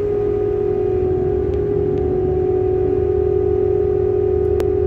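Cargo-handling machinery running while coal is loaded into a ship's hold: a steady, unchanging high hum over a low rumble, with one sharp click near the end.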